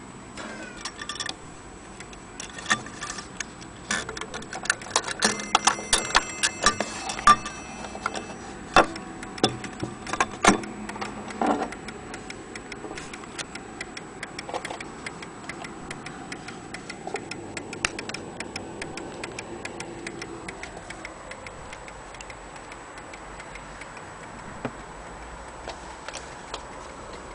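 Hermle wall clock's pendulum movement ticking steadily. In the first half, loud clicks and short metallic rings come thick and fast, then die down.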